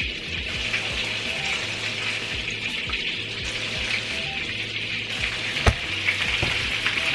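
Meatballs frying in hot oil in a pan, a steady sizzle, with one sharp tap a little before the end.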